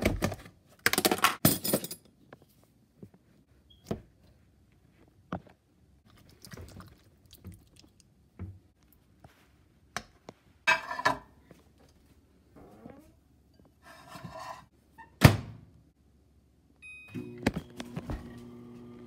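Knocks and clatter of a plastic food container and a ceramic bowl being handled on a stone counter, with short scraping sounds in between. Near the end, microwave keypad beeps, then the microwave starts running with a steady low hum.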